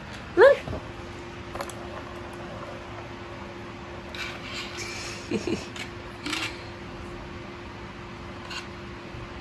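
A kitten gives one short meow, rising then falling, about half a second in. A few seconds later comes a spell of plastic rattling and clicking from a ball rolling in a plastic ball-track cat toy.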